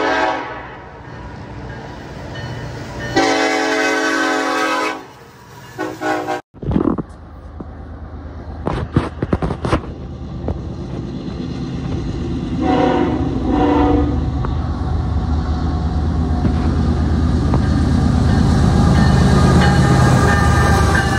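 Diesel freight locomotive horn sounding two long blasts. After a hard cut, a second freight train led by CP, CN and KCS de México diesel locomotives approaches with two short horn blasts about 13 seconds in, and its diesel engines rumble louder as the locomotives come by.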